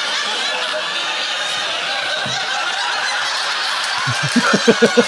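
Stand-up comedy audience laughing together, with a man's rhythmic chuckle breaking in about four seconds in and becoming the loudest sound.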